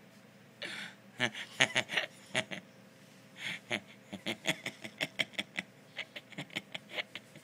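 Breathy laughter: two runs of quick short puffs, about four a second, each starting with a gasping breath in, one about a second in and the other about three and a half seconds in.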